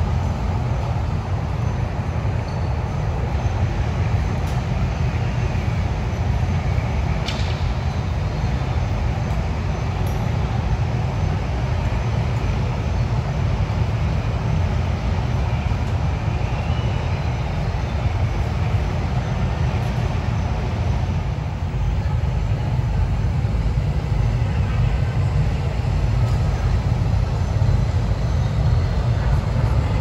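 Steady, even rush of falling water, heaviest in the low end, played over loudspeakers as the soundtrack of a digital waterfall display.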